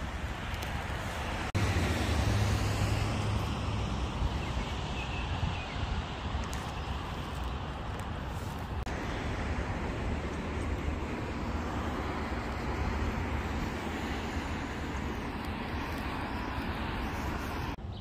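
Road traffic noise: a steady rumble and hiss of cars on a nearby street, louder and heavier in the low end for a couple of seconds after an abrupt jump about a second and a half in.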